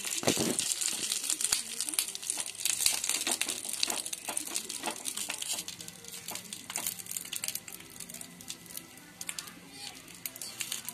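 A hand spreading masala-coated mourala fish over a banana leaf in a frying pan: crinkling of the leaf and wet squishing of the fish, with many small crackles, busier and louder in the first half.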